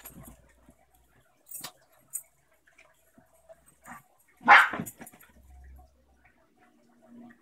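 A dog at play gives one loud bark about four and a half seconds in, with a few faint clicks and taps around it.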